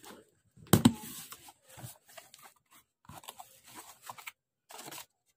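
A delivery parcel being cut and torn open: irregular crinkling, scraping and tearing of the packaging, with a sharp crunch about a second in.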